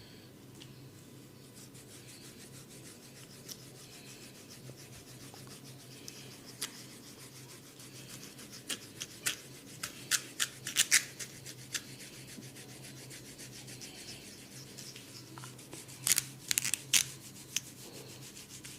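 Rubbing and scratching through a person's hair and scalp during a head massage, broken by two runs of sharp snapping clicks, the first through the middle and the second near the end.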